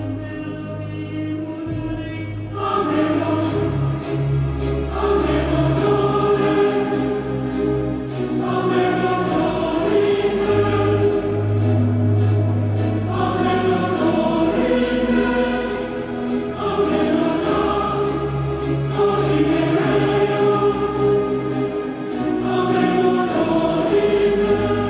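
Choral music: voices singing long held chords over sustained bass notes, with a high shimmer, like bells or cymbals, coming in twice.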